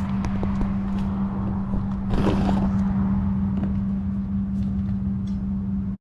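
Plastic underbody cover of a Hyundai Palisade being worked loose and handled, with a short scraping rustle about two seconds in and a few light clicks, over a steady low hum.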